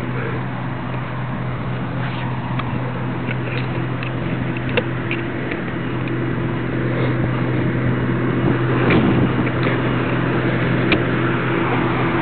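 A fire engine's engine running steadily at the fire scene, a constant low hum with a noisy wash over it and a few scattered clicks and knocks.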